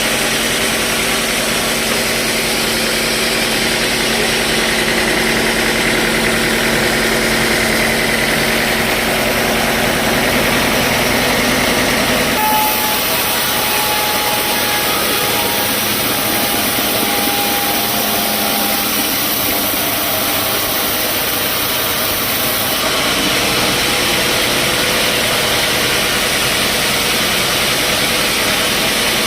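Sawmill machinery running with a steady engine sound, changing abruptly about twelve seconds in and again a little before the end.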